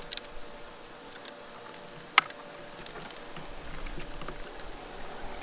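A few scattered light clicks and taps, with one sharper click about two seconds in.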